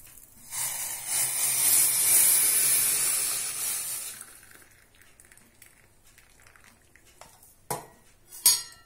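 Hot herbal decoction poured from a pan through a strainer, a steady splashing hiss lasting about four seconds. Near the end come two light clinks of a metal utensil.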